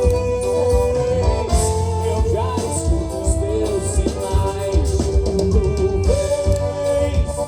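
Live forró band music with a steady drum beat and a held, gliding melody line.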